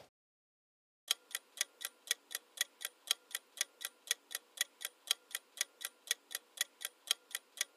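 Countdown-timer clock-tick sound effect, ticking evenly at about four ticks a second, starting about a second in.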